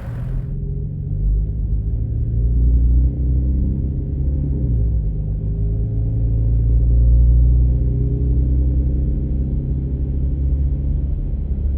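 2020 Toyota Tacoma's 3.5-litre V6 engine running with a deep, muffled low rumble, its engine note rising and falling. It swells louder about three seconds in and again past the middle.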